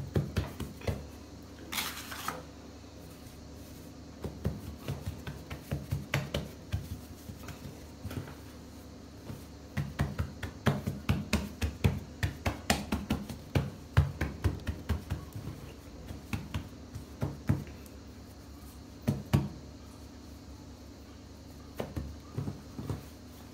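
Hands pressing and patting semolina-and-flour bread dough flat on a floured worktop: soft, irregular taps and thumps in clusters with short pauses between, as the risen dough is degassed and spread out.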